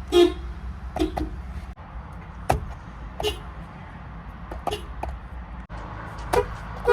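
Subaru car horns giving a series of short toots, about eight brief beeps spread over several seconds, with the loudest just after the start and near the end. A low steady rumble runs underneath.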